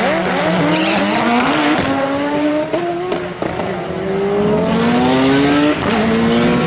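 Two drag-racing cars launching side by side and accelerating hard down the strip, engine pitch climbing and dropping back at several gear changes.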